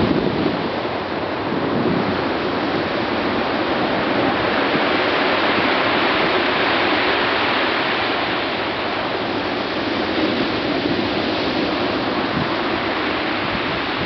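Rough sea surf breaking and washing up a pebble beach: a steady, loud rush of waves.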